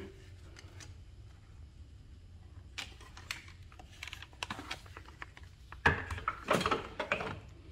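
Hands handling hoses and small plastic parts in a car's engine bay: scattered light clicks and taps with some rustling, starting about three seconds in and busiest near the end.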